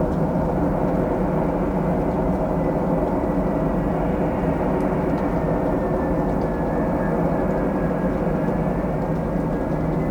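Ilyushin Il-76's four turbofan engines running steadily on its landing approach, a dense low sound with a faint high whine above it.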